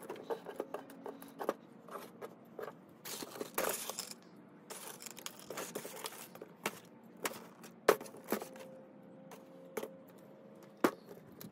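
Loose stripped copper wire rustling and crinkling as it is handled and pressed into a crucible, with scattered clicks and a few sharp knocks of metal motor parts being picked up and set down.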